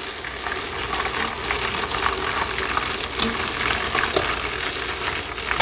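Breaded lobster tail deep-frying in hot lard in a cast iron Dutch oven: a steady sizzle with scattered small pops and crackles, and one sharp click near the end.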